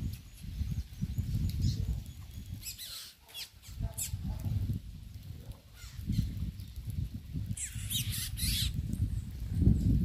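A flock of small seed-eating birds at a feeder: flurries of wing flutter as birds take off and land, once around three to four seconds in and again near eight seconds, with a few faint chirps, over a low, uneven rumble.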